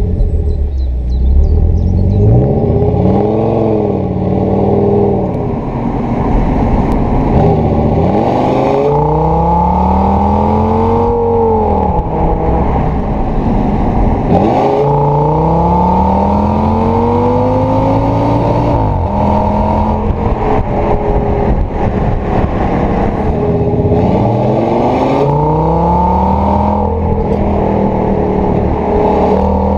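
Audi S8 D3's 5.2-litre V10 engine and exhaust, loud, its pitch climbing and falling back again and again as the car is revved and accelerated.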